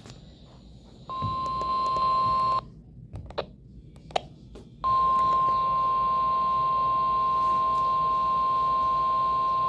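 NOAA Weather Radio warning alarm tone, a single steady high beep: a short burst of about a second and a half, then a pause broken by a few clicks, then a longer unbroken tone that runs on past the end. It signals the warning broadcast that follows, here a severe thunderstorm warning.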